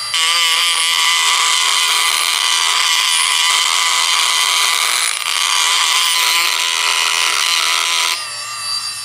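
Dremel rotary tool grinding metal off an aluminium piston to bring its weight down to match the other pistons for balancing. A steady high whine with grinding, easing briefly about five seconds in, then lifting off the piston near the end and running free, quieter.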